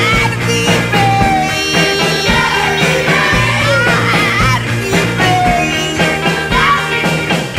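Rock song with a singing voice over bass and drums.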